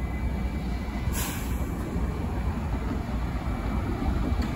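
New York City Subway train on the L line at a station platform: a steady low rumble with a short hiss about a second in.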